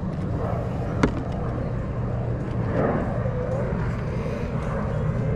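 Steady low hum of the skiff's motor running, with one sharp click about a second in.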